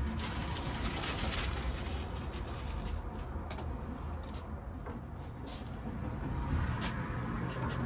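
Hands working vinyl flooring pieces and tools on a workbench: several light taps and clicks, scattered through the middle, over a low steady rumble.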